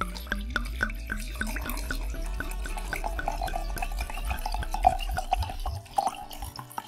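Red wine poured into a wine glass: splashing and gurgling as the glass fills, the stream thinning to drips near the end.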